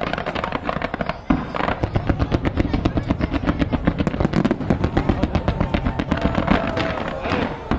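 Fireworks display: a rapid, continuous string of sharp cracks and pops, several a second, starting suddenly about a second in and thinning out near the end.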